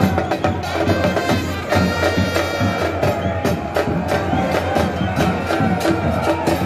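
Football supporters' band in the stands, a crowd chanting to a steady beat of bass drums, with reedy wind instruments holding long notes over it.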